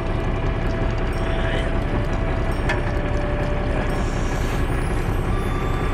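A fishing boat's engine running steadily, with a steady mechanical whine over it that stops with a sharp click about two and a half seconds in; a higher whine starts near the end.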